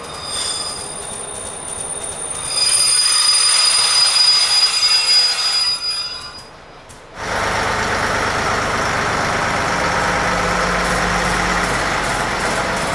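Train wheels squealing, several high steady tones held together, loudest from about two and a half to six seconds in. About seven seconds in it cuts off sharply and gives way to a steady train rumble with a low hum.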